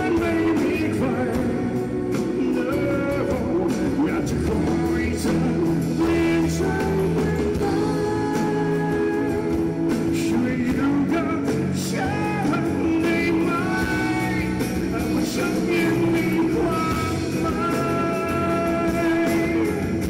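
A live rock band playing: a male lead vocalist singing over electric and acoustic guitars and drums.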